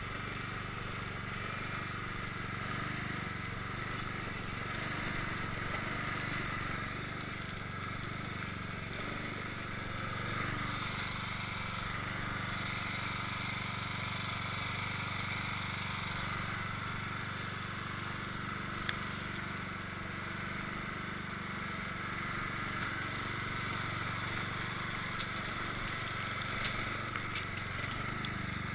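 Cub Cadet XT1 riding lawn tractor's engine running steadily under load as its front blade pushes heavy snow.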